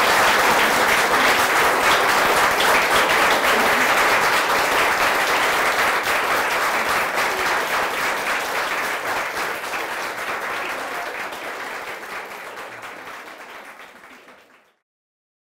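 Audience applauding, a dense patter of many hands clapping, steady at first and then fading away over several seconds until it stops near the end.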